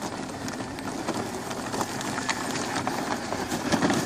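Kids' 12-volt battery-powered ride-on ATV driving over bumpy grass and dirt, its plastic wheels and body clattering with irregular knocks, slowly getting louder as it comes closer.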